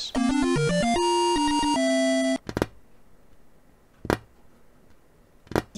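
A short synthesized jingle of quick stepping notes that cuts off sharply after about two seconds, followed by three single clicks about a second and a half apart.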